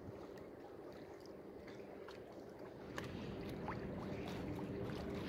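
Choppy dock water lapping against concrete pillars, with wind buffeting the microphone; it gets a little louder about three seconds in.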